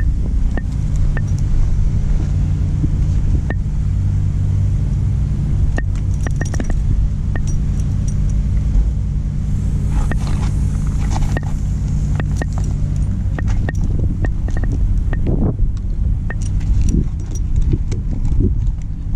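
A truck's engine idling steadily, with sharp metallic clicks and clinks from hand tools over it. Part of the low hum drops away about two-thirds of the way through.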